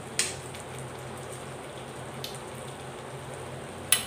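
Salted egg yolk sauce sizzling and crackling steadily in a metal wok over a gas flame as it reduces toward a sticky consistency. Two sharp clinks, one just after the start and one near the end.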